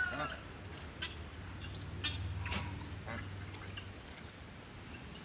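Faint, scattered short calls from a mixed flock of farmyard ducks, geese and chickens, over a low steady background hum.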